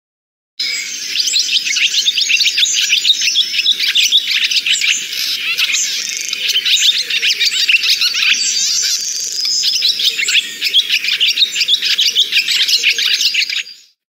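Bird chirping and twittering: a dense run of many short, high calls packed closely together. It starts about half a second in and cuts off just before the end.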